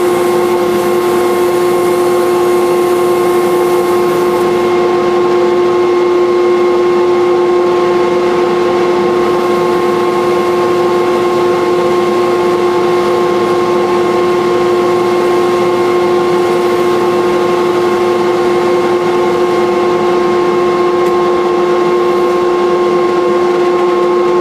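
Wood lathe running with a turning gouge cutting a spinning wooden knife-handle blank, over a steady motor whine that holds one pitch throughout.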